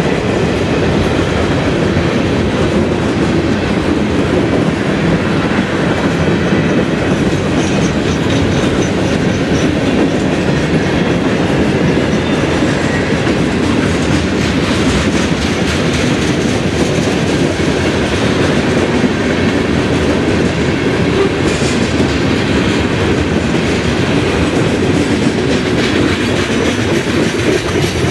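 Freight train cars rolling past: a steady rumble of steel wheels on rail with a running clickety-clack as the trucks cross rail joints.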